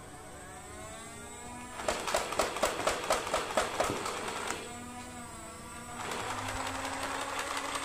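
Nerf M41-A Pulse Blaster's motorized flywheels whining up in pitch, then a rapid full-auto rattle of about eight strokes a second for two and a half seconds. The whine dips and rises again, and a second rattling burst starts about six seconds in.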